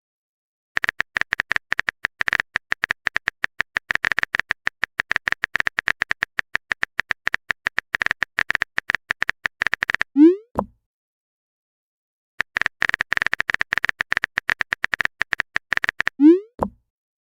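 Rapid typing clicks of a chat-app sound effect in two runs of several seconds each, with a pause between them. Each run ends in a short rising pop, a message-sent notification.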